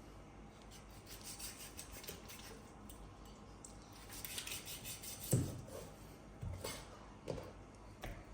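Faint kitchen handling while a raw chicken is cut into pieces: light clicks and scrapes of a knife and utensils, with a few soft knocks between about five and seven and a half seconds in.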